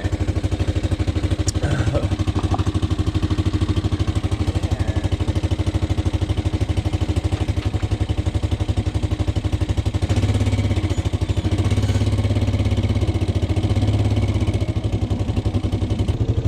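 An off-road vehicle's engine running steadily with a rapid, even pulse; its low throb grows louder for a few seconds about ten seconds in.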